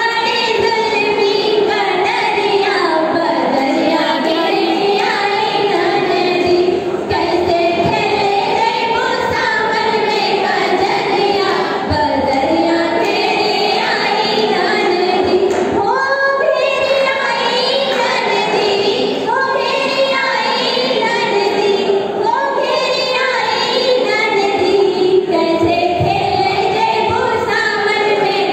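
A group of young women singing a kajari, a Sawan-season folk song, together in unison.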